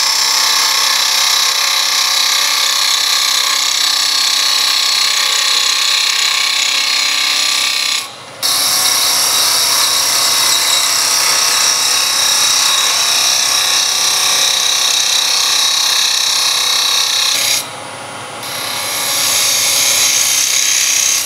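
Wood being turned on a lathe: a gouge cutting shavings from a spinning spindle blank, a steady loud hiss. The cut breaks off for a moment about eight seconds in and again for about a second near the end.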